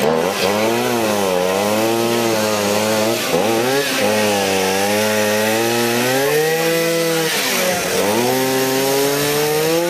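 Chainsaw cutting through the base of a wooden maypole to fell it, its engine note wavering up and down as the chain bites into the wood, with two brief dips about a third of the way in and near the end.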